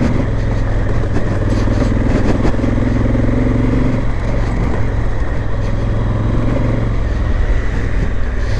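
Adventure motorcycle engine running steadily while riding a gravel road, with road noise and occasional rattles.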